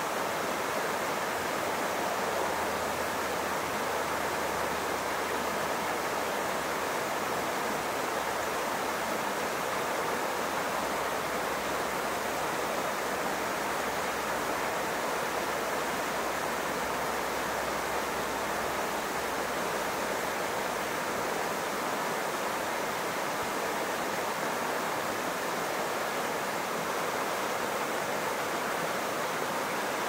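Small creek running over rocks, a steady, even wash of flowing water with no change throughout.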